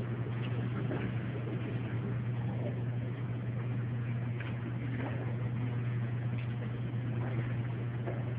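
Steady low hum, with faint scattered clicks and a soft haze of room noise above it.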